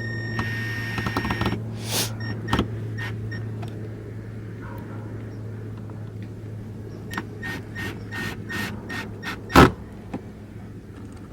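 Cordless drill running briefly about half a second in, followed by a scatter of sharp clicks and knocks, with one loud knock near the end. A steady low hum runs underneath.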